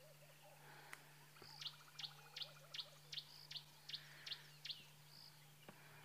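Faint birdsong: a run of about nine short, high chirps at roughly three a second, with a faint fast trill and other soft bird notes, over a steady low hum.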